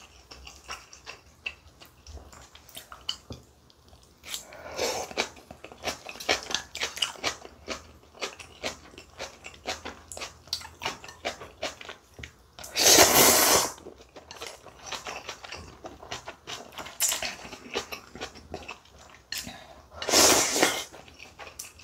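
Close-miked eating: chewing and crunching of kimchi and instant ramen noodles, with many small wet clicks. There is a long loud slurp of noodles about halfway through, and another slurp of spicy ramen broth from a large spoon near the end.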